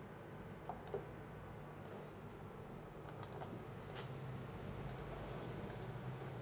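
Faint scattered clicks from a computer mouse and keyboard, with a quick cluster of clicks about three seconds in, over a low steady hum of room tone.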